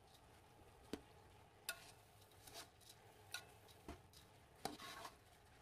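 Faint, irregular clicks and scrapes of a spatula against a rice cooker's inner pot while raw rice is stirred and fried in oil, about one click a second.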